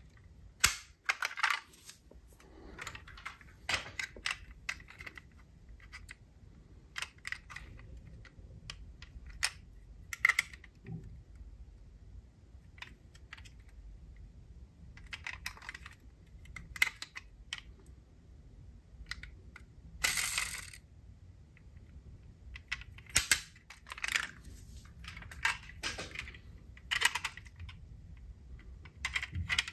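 Die-cast toy cars being handled, with irregular small clicks and clinks as they knock against each other and the box, and a longer rattle about twenty seconds in.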